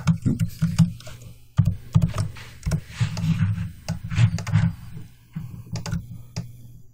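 Computer keyboard keys and mouse buttons clicking in an irregular run of quick taps, with low thuds from the desk under them.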